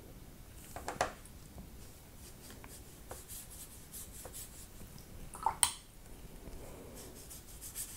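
Wet watercolour brush stroking and dabbing on paper and in a paint pan, laying a swatch of paint thinned with water: faint scratchy brushing with a few light taps, the sharpest a click about five and a half seconds in.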